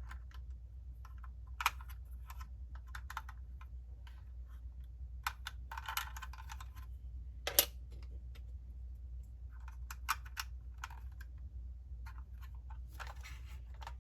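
Scattered small clicks and taps, with two short rustles, from hands handling a die-cast model car and its packaging, over a steady low hum.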